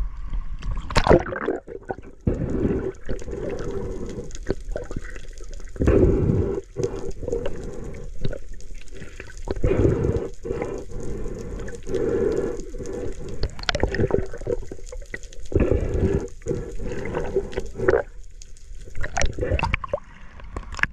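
Water heard underwater, muffled and dull, swelling and sloshing in uneven surges, with scattered short splashes and bubbling.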